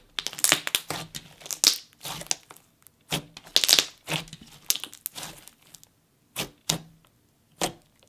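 Hands squeezing and kneading a thick slime, making irregular crackling bubble pops as air pockets burst, with a lull about six seconds in.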